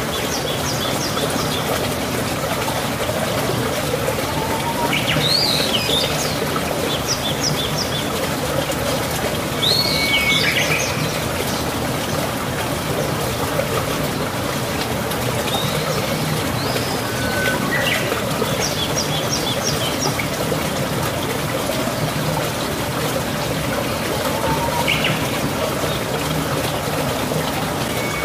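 Birds chirping every few seconds in short calls and quick trills over a steady rushing background noise.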